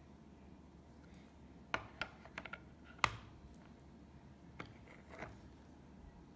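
Hard plastic NGC coin holders clicking and clacking against one another and the wooden table as one slab is set down and another picked up: a handful of sharp clicks, the loudest about three seconds in.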